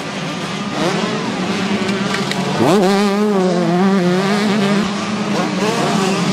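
125cc two-stroke motocross bike engines racing, revving up and down, with one sharp rise in revs about two and a half seconds in.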